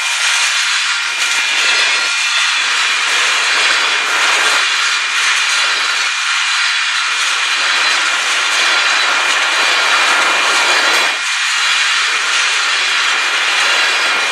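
Freight cars of a mixed freight train rolling past close by: a loud, steady rush of steel wheels on rail, with faint thin high ringing tones above it.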